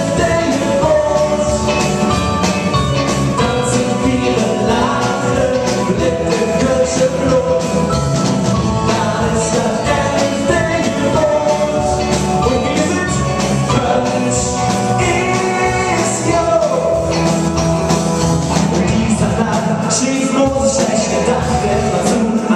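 Live rock band playing a carnival song: electric guitar, keyboard and drum kit, with a male lead vocal.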